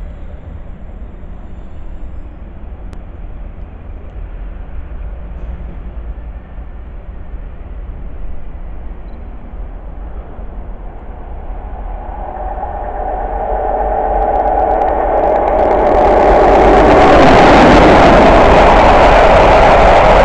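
Freight train hauled by Class 92 electric locomotive 92011 approaching and passing close by. Faint at first, it grows from about halfway through and is at full loudness for the last few seconds as the locomotive goes past and its covered wagons roll by.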